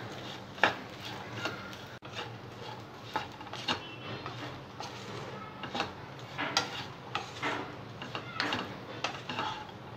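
Spatula stirring fried corn kernels in a nonstick frying pan: irregular scrapes and clicks of the spatula against the pan and the tumbling kernels.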